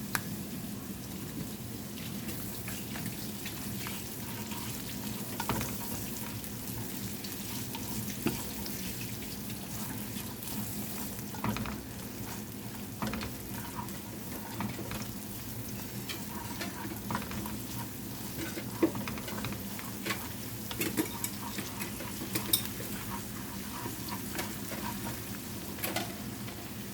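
Garlic and onion sautéing in sesame oil in a pan, a steady sizzle, with occasional sharp knocks and scrapes of a utensil stirring against the pan.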